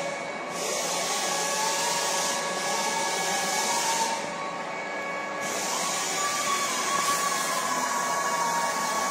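Metalworking machine running with a steady whir, with faint held tones and a slowly wavering tone above it.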